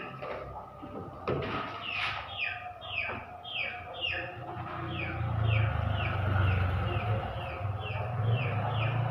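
A songbird repeating short downward-sliding chirps, about two a second, with a couple of knocks in the first two seconds and a low steady hum coming in about halfway through.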